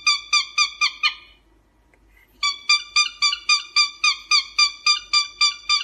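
Cockatiel calling in a rapid run of short, shrill notes, about four a second. The run breaks off about a second in and starts again some two and a half seconds in.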